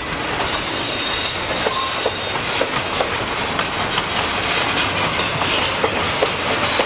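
Freight train cars rolling past with a high-pitched wheel squeal, strongest in the first couple of seconds, over the rumble of the cars and repeated clicks of wheels over rail joints. The filmer wonders whether the squeal is a failing wheel bearing.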